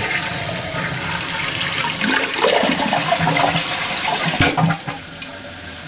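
Toilet flushing, water rushing steadily through the bowl and tank.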